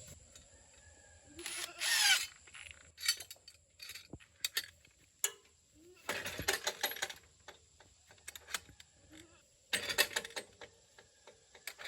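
Metal hardware and hand tools being handled during a gate-latch install: scattered sharp clicks and clinks, bunched into short rattling bursts about two seconds in, around six to seven seconds, and near ten seconds.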